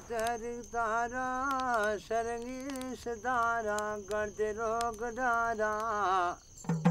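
A single voice singing a slow folk melody in short phrases of held, wavering notes. A steady high insect trill runs behind it, and drum strokes start right at the end.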